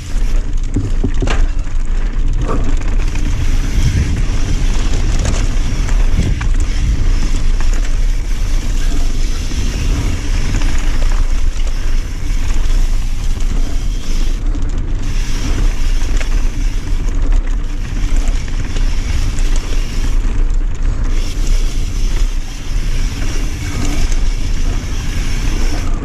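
Mountain bike descending a dirt and gravel trail at speed: tyres rolling and crunching over the surface, with a few knocks from bumps, under steady wind rush on the microphone.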